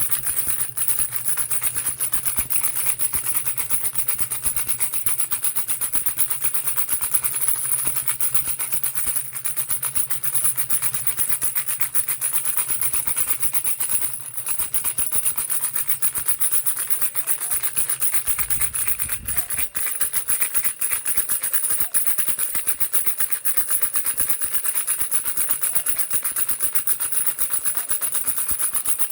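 Baby rattle shaken continuously in a fast, dense rattling. A low hum underneath stops about two-thirds of the way through.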